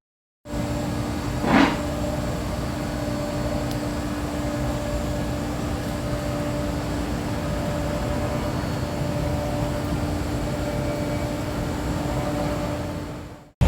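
Steady mechanical hum with a constant tone, with one short louder sound about a second and a half in.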